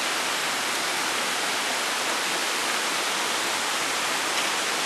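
Steady rush of flowing water, an even hiss with no pauses or changes.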